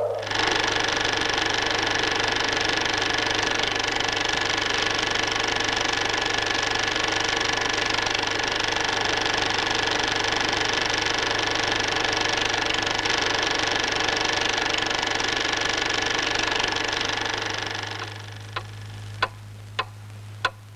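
A steady, dense machine-like noise full of held tones cuts in sharply and stops about three seconds before the end, over a low steady hum. After it, sharp ticks sound a little over half a second apart.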